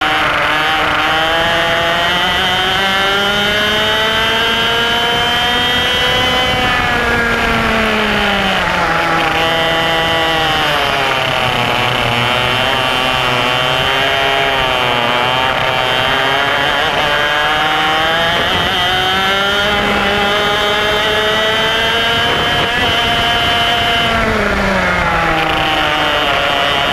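IAME X30 125cc two-stroke kart engine heard onboard at racing speed, its pitch climbing steadily through long accelerations and dropping sharply as the driver lifts for corners, about six seconds in and again near the end, with shorter dips between.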